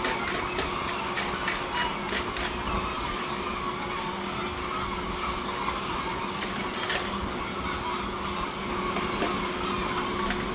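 Steady machinery hum with clusters of rapid clicking and rattling, heaviest in the first couple of seconds and again about six to seven seconds in.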